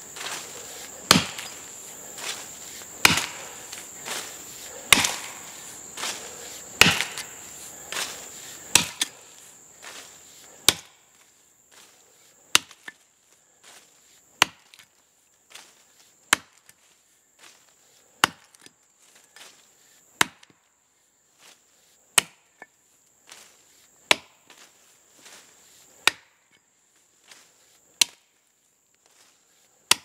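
Axe chopping into a standing tree's trunk, a heavy strike about every two seconds with lighter hits between, knocking out chips to clear the front notch for felling.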